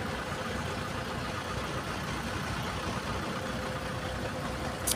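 Loaded dump truck's diesel engine idling steadily while the truck sits stuck, its rear wheel sunk in soft soil. A short click comes right at the end.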